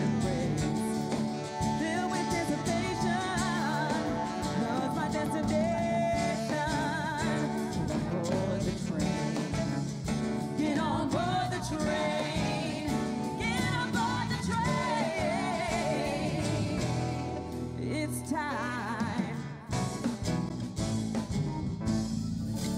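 Live band music: women singing long, wavering notes over electric guitar and drums.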